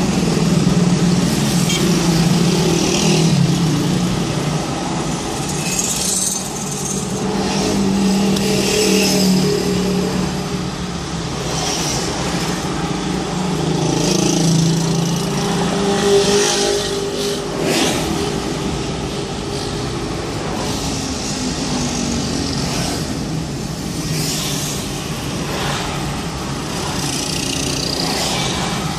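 Slow-moving road traffic: car and motorcycle engines running close by over a steady hum and hiss, with a louder pass now and then.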